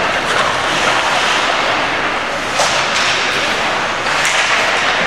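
Ice hockey play in an indoor rink: a steady wash of skating and crowd noise, broken by two sharp cracks of stick and puck, about two and a half and four seconds in.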